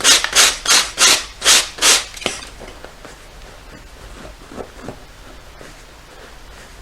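Sandpaper rubbed by hand over the peeling surface of a bonded leather sofa, removing the flaking top layer. There are about six quick scratchy strokes, roughly three a second, which stop about two seconds in, followed by a few faint scrapes.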